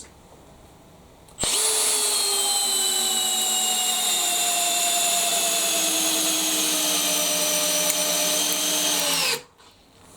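Makita XPH06 18 V cordless hammer drill in low gear driving a 100 mm, 14-gauge galvanised batten screw into timber without a pilot hole. The motor starts about a second and a half in and runs for about eight seconds, its whine slowly dropping in pitch as the load grows, then stops suddenly.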